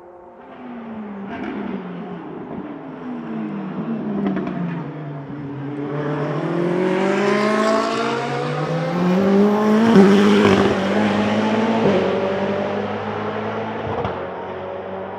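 Ferrari 488 GT Modificata race car's twin-turbo V8 engine: its pitch drops in steps as it slows, then it accelerates hard through the gears with upshifts about ten and twelve seconds in. It is loudest around the first of these.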